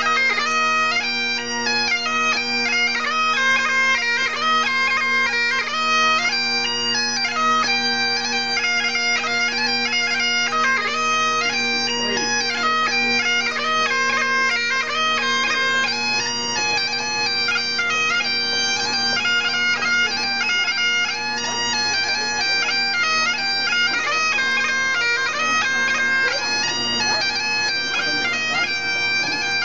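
Great Highland bagpipes played solo: steady drones sound under a moving chanter melody throughout.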